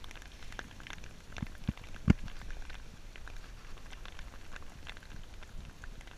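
Hail mixed with rain falling steadily, hailstones ticking irregularly on a wooden deck and the ground, with one much louder knock about two seconds in.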